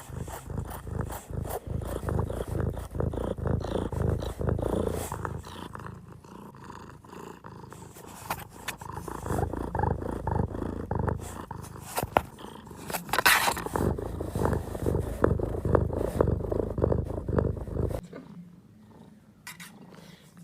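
A pet animal's low, rhythmic rumbling close to the microphone, which stops about eighteen seconds in.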